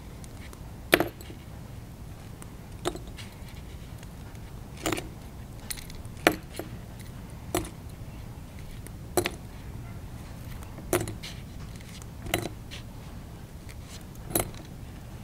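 Small metal alligator clips clinking as they are pulled off a netting mask one at a time and dropped onto a pile of clips on the table. There are about nine sharp clinks, roughly one every second and a half to two seconds.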